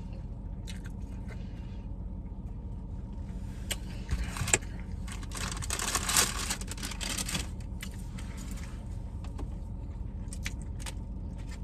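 Steady low hum inside a car, with a cluster of clicks and rustling from about four to seven and a half seconds in as food and its container are handled.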